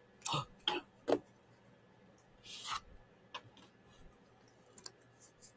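Game cards handled on a tabletop: three sharp clicks of cards being set down in the first second or so, a brief rustling slide of a card about halfway through, then a few faint ticks.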